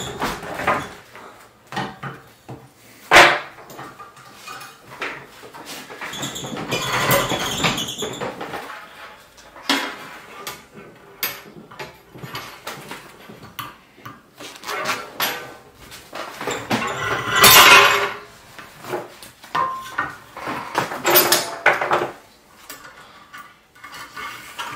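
Metal wire being drawn through a steel drawplate clamped in a bench vise and pulled with pliers: spells of metallic scraping and clinking at irregular intervals, with a sharp clink about three seconds in.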